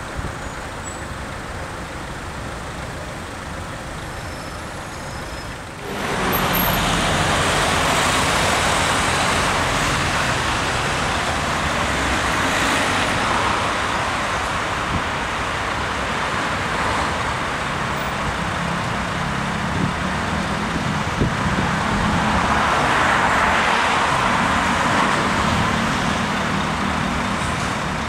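Electric tram pulling into a stop and halting at the platform, with a steady hum and hiss from its running gear and street traffic behind. The hiss steps up suddenly about six seconds in.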